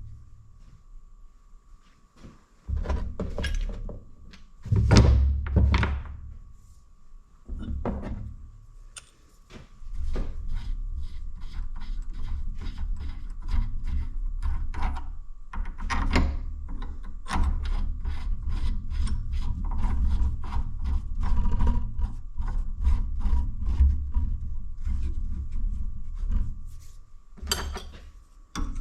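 Bolts being run into a cast-iron hydraulic valve body with a hand tool: some knocks and handling thumps in the first few seconds, then a long run of quick, regular clicks, about two or three a second, as the bolts are turned in.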